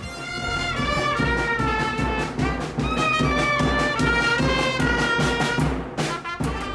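Street brass band playing a tune, trumpets and trombones over a steady drum beat.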